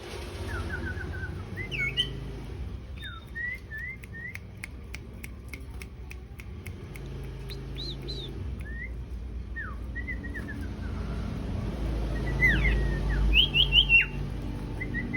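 A sirtu songbird chirping and whistling in short phrases of quick sliding notes with pauses between them, with a fast run of dry ticks about four to six seconds in and a louder burst of rising chirps near the end.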